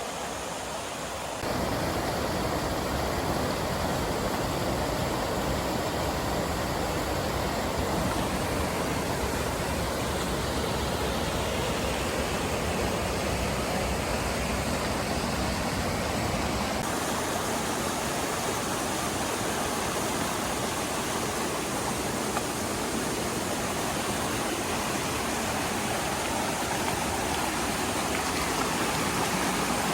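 Steady rush of flowing water, an even hiss with no distinct events. It jumps louder abruptly about a second and a half in and changes tone around the middle, like cuts between shots of the water.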